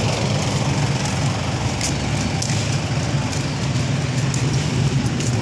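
Motorcycle engine running steadily at low speed, a low even hum.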